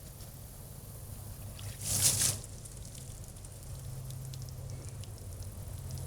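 Water briefly rushing out of the well-water filter housing about two seconds in as it is opened, followed by light dripping, over a steady low hum.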